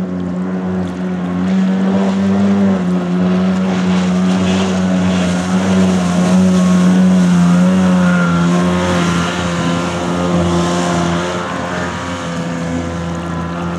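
Kawasaki 550 jet ski two-stroke engine in a small jet boat running hard at speed with a steady high-revving note. It grows louder as the boat passes closest, about halfway through, then eases off a little.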